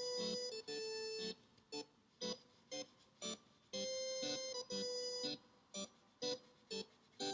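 Background music: held electric-keyboard or organ chords over a steady beat of short percussive hits, about two a second.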